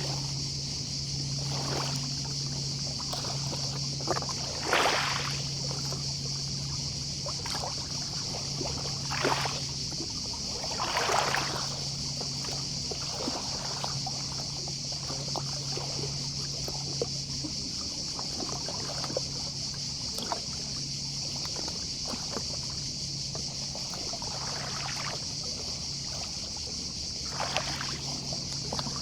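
Small waves lapping and washing onto the beach in soft rushes every few seconds, over the steady high buzz of distant cicadas. A low steady drone comes and goes underneath.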